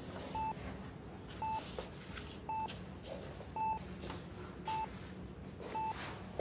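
Patient heart-rate monitor beeping steadily, one short beep about every second.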